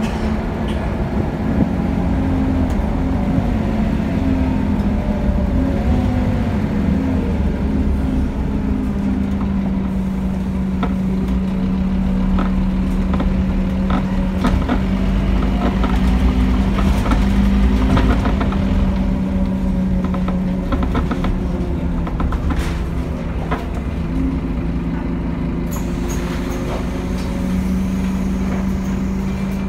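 Scania N230UD double-decker bus heard from inside while under way: its five-cylinder diesel keeps up a steady low drone, with the engine pitch rising and falling several times as the bus accelerates and changes gear. Scattered clicks and knocks run over it, and it is loudest a little past the middle.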